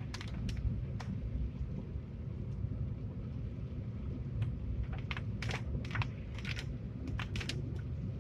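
Inside a car's cabin driving on a wet road in heavy rain: a steady low road and engine rumble, with irregular sharp ticks of rain hitting the windshield, thickest in the second half.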